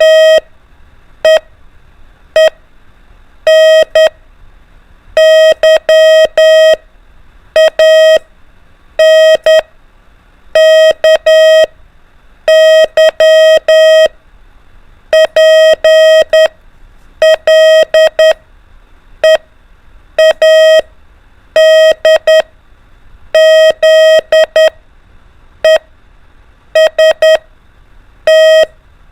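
Morse code (CW) practice tone keying single letters as dots and dashes, one steady mid-pitched beep switched on and off. A pause of a second or so comes between letters.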